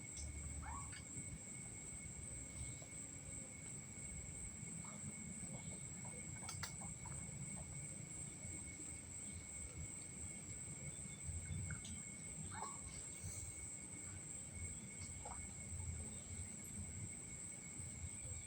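Night insect chorus: crickets trilling in two steady high continuous tones, with scattered faint short chirps and a low rumble underneath.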